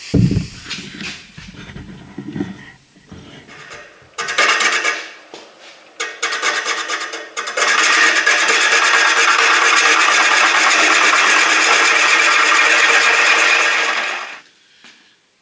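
A turning gouge cutting a bowl blank spinning on a wood lathe: a steady, loud, even scraping hiss that starts about 7.5 s in and fades out near the end, after a shorter cut about 4 s in. Scattered knocks and handling thuds come before it.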